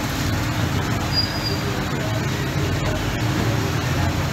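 Steady background rumble and hiss of a busy street food stall, with no single distinct event.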